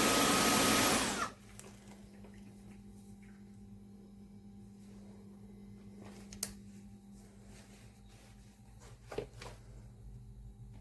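Roborock F25 RT cordless wet-dry vacuum running, its motor shutting off suddenly about a second in after the cleaning-stopped prompt. Afterwards only a faint steady hum and a few soft clicks.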